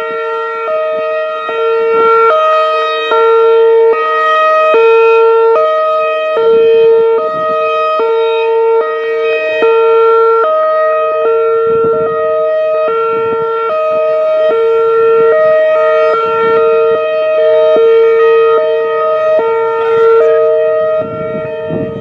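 Whelen Vortex R4 outdoor warning siren sounding a steady two-tone chord during a test. Its loudness swells and fades as the rotating head sweeps around, and it drops off toward the end.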